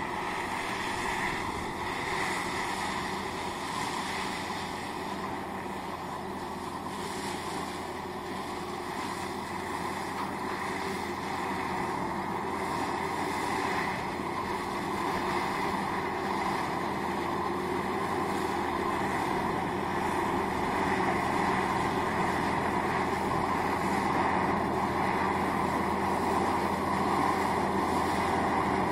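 Erkunt Nimet 70 tractor's diesel engine running steadily under load as it pulls a Paksan square baler working through straw windrows, growing gradually louder as it comes closer.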